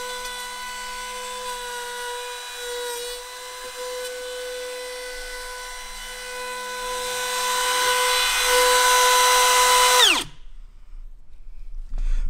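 Wood router running with a steady high whine, growing louder and harsher for a few seconds as it cuts a lock mortise into a door, then switched off about ten seconds in and winding down with a falling pitch.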